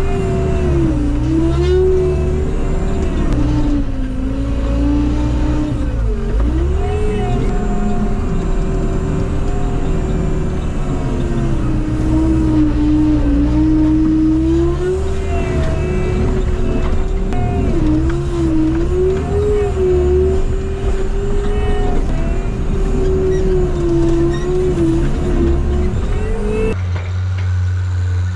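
Tracked skid steer's diesel engine and hydraulics running hard while pushing dirt, the pitch sagging under load and recovering again and again.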